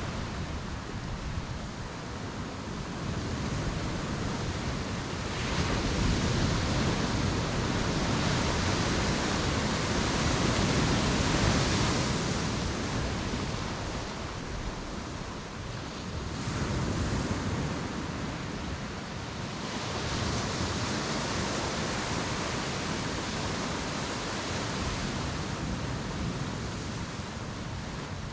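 Sea waves breaking on the beach, the wash swelling and fading in slow surges every few seconds, loudest about halfway through.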